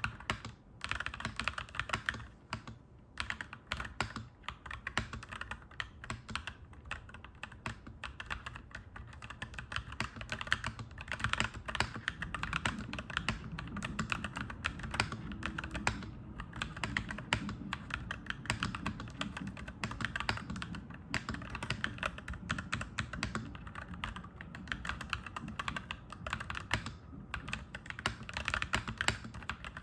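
Fast, continuous typing on a clacky mechanical keyboard, keys clacking in irregular runs with brief pauses. Through the middle a low rumble swells underneath the typing and then fades.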